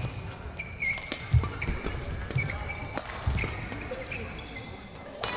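Badminton rally: sharp cracks of rackets hitting the shuttlecock about once a second, shoes squeaking on the court mat, and thudding footfalls.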